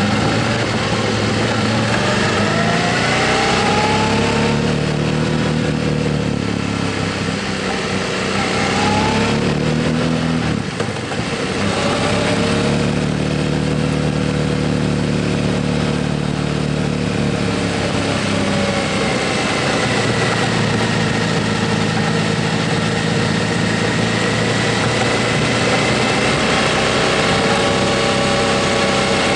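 Motorcycle engine under way, its pitch rising and falling with the throttle. About ten seconds in it briefly drops off, as at a gear change, then pulls again.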